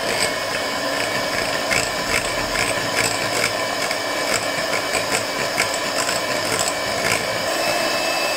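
Electric hand mixer running steadily with a whine, its twin beaters whipping chilled heavy cream up to soft peaks, with occasional sharp clicks.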